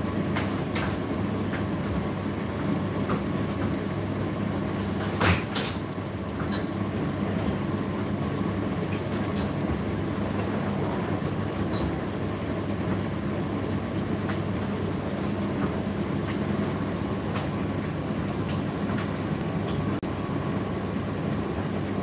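Indesit IDC8T3 8 kg condenser tumble dryer running mid-cycle: a steady motor and drum hum with scattered light clicks and taps, and one louder knock about five seconds in.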